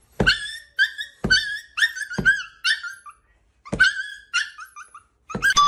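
Small white puppy giving a string of short, high yelps, with soft thuds of a slipper patting the cushion at the start of several of them. The cries pause briefly a little after three seconds in.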